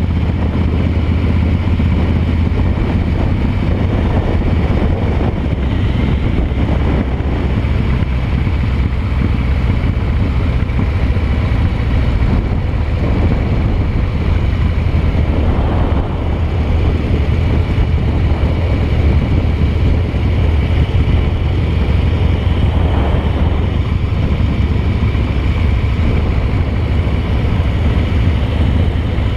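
Harley-Davidson V-twin engine running steadily under way, heard from the rider's seat with wind noise on the microphone.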